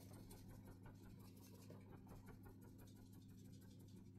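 Near silence: room tone with a steady low electrical hum and faint light scratching, like a brush or fingers lightly touching the skin.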